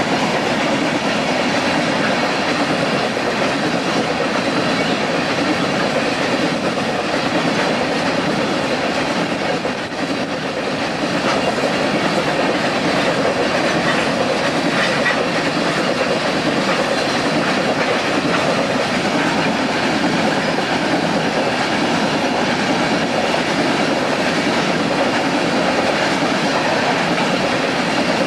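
Freight train of covered hopper cars rolling past close by: a steady rumble with the clickety-clack of wheels over the rail joints, briefly softer about ten seconds in.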